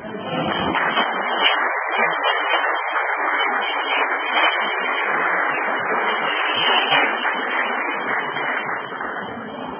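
Audience applause, a dense even clapping that starts just as the guitar stops and thins out near the end.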